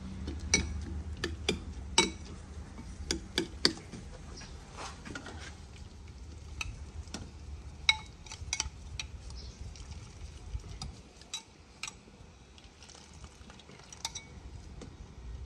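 Metal cooking utensils clinking and knocking against pots and dishes: irregular sharp clinks, some with a brief ringing tone, over a low steady rumble that stops about eleven seconds in.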